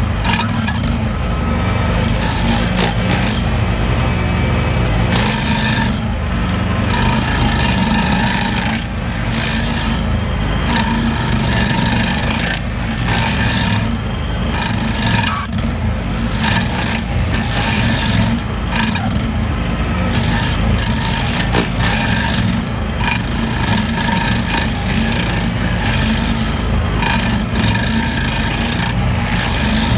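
Small petrol engine running steadily under load, with a continuous rasping, scraping cutting noise over it.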